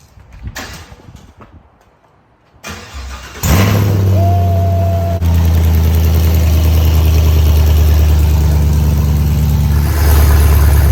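A car's V8 engine starts about three seconds in and then runs at a loud, steady idle, with a deep, even low note.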